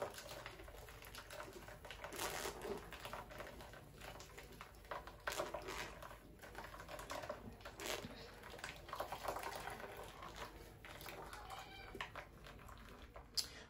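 Spatula scraping and pressing blended corn pulp through a wire-mesh sieve, a faint, irregular run of short wet scrapes and rubs.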